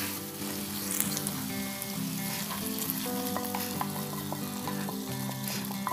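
Hot oil tempering of mustard seeds, cumin, chana and urad dal, red and green chillies and curry leaves sizzling in a small pan as it is tipped into curd rice. Soft background music with held notes plays underneath.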